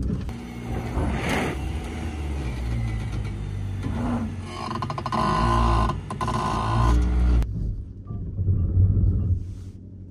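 BYD Shark 6 ute working its way over rough off-road ground, a steady low rumble with a rougher, higher noise for a couple of seconds in the middle. The higher noise drops away suddenly near the end, leaving the low rumble.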